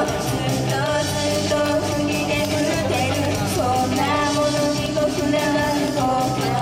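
Rock-style song with sung vocals over loud, dense band backing, performed live.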